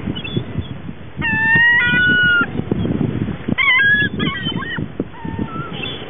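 Seagulls calling: a long run of squealing calls about a second in, another burst a little after the middle, and a few shorter calls near the end, over steady wind rumble on the microphone.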